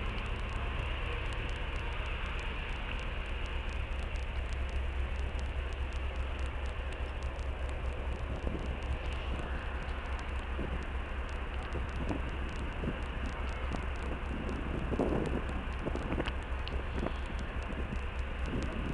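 Steady low rumble of a passenger ferry's machinery under way, with a noisy wind-like rush over it.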